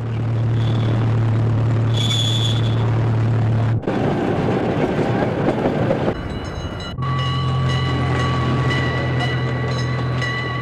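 Zooline miniature train running: a steady low engine drone, then a rattling stretch of wheel and track noise, then the drone again with a steady high whine. The sound changes abruptly at film cuts.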